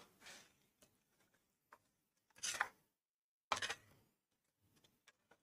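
A steel spoon stirring thick yogurt mixed with green chutney in a steel bowl: quiet wet scrapes and light clicks of spoon against bowl, loudest in two strokes about halfway through with a brief total silence between them.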